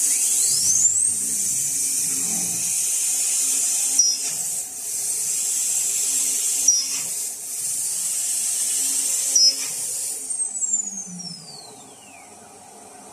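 Spindle of a CNC aluminium machining centre whining up to speed, then running with a steady high hiss broken by short dips about every two and a half seconds. Near the end the spindle winds down in a long falling whine.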